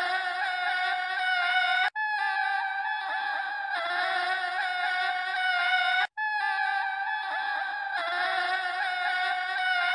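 A short sound clip playing on a loop, repeating about every four seconds with a brief cut-out between repeats. Each pass is a dense layer of held, high tones with pitches sliding up through them.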